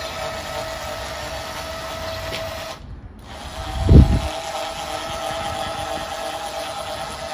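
Electric trailer jockey wheel's 12-volt, 350 W motor whining steadily as it drives the wheel along. The whine cuts out briefly a little under three seconds in, there is a loud low thump about a second later, and then the motor whines on again.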